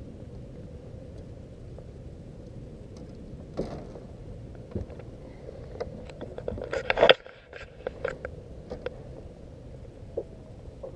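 Scattered knocks and scrapes of gear being handled in a boat over a steady low background noise, the loudest a sharp knock about seven seconds in.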